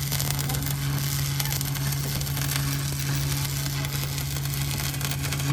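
Arc welding on a steel truck rim: a steady electrical buzz with crackling sizzle from the arc, which cuts off abruptly near the end.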